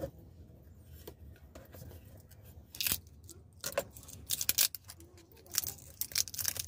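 Small pump parts being handled and fitted by hand: scattered clicks and crinkling rustles, busiest in the second half, as a new plate and water seal go onto the water pump.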